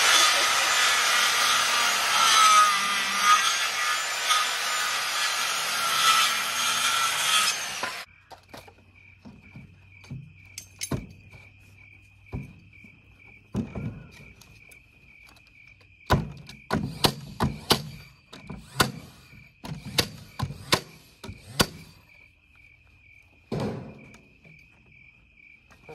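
Circular saw cutting through a wooden board for about eight seconds, then cutting off suddenly. After a pause, scattered knocks and clatters of boards being handled and set against a wooden frame, with crickets chirping steadily.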